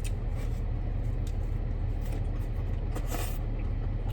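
Steady low rumble of an idling car heard from inside the cabin, with wet clicks and smacks of someone chewing a burger close to the microphone and a brief rustle about three seconds in.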